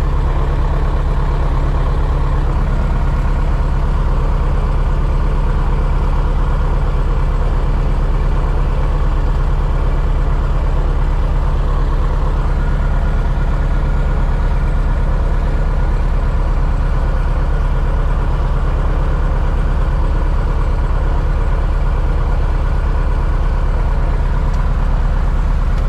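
Piston engine of a two-seat light aircraft idling steadily with the propeller turning, a constant low drone with a fast even pulse and no change in speed.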